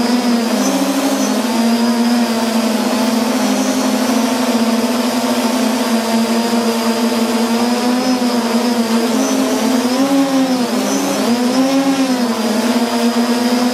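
Multirotor drone's electric motors and propellers humming steadily, close to the microphone. The pitch wavers and dips several times near the end as the throttle changes on the descent to the landing pad.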